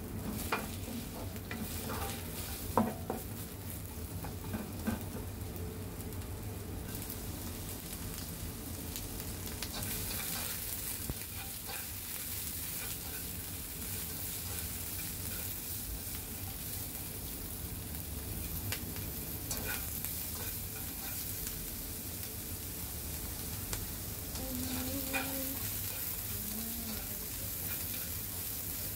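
Sliced onions sizzling in hot cooking oil in a non-stick wok as they are sautéed, stirred with a wooden spatula and chopsticks, with occasional light taps of the utensils on the pan. The sizzle grows a little louder about ten seconds in.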